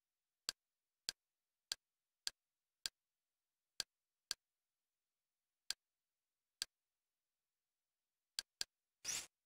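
Interface navigation clicks from a Kodi media-centre menu. There are about eleven short, sharp ticks at uneven intervals, roughly one every half second to second, with two close together just past eight seconds. About nine seconds in comes one slightly longer click-burst, typical of the select sound that opens an item.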